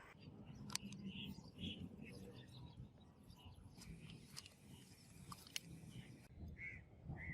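Faint, short bird chirps a few times over a low background hum, with a few sharp clicks.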